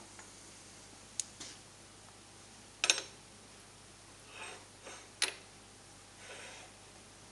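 Steel parts and tooling being set down and shifted on the steel bed of a fly press: three sharp metal clinks, the loudest about three seconds in with a short ring, and a few softer scrapes between them.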